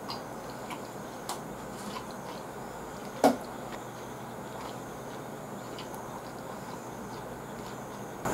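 Faint chewing with a few soft mouth clicks over a steady background hiss, and one sharp click about three seconds in as wooden chopsticks knock against a small ceramic dish while picking up a cucumber pickle.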